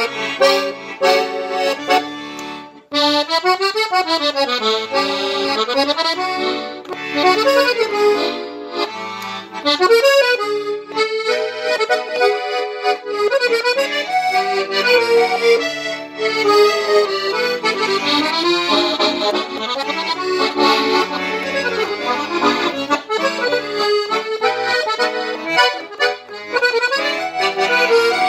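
BARO Professional five-voice piano accordion being played: a melody on the right-hand keys with bass notes underneath, and quick runs sweeping up and down the keyboard. The playing breaks off for a moment about three seconds in.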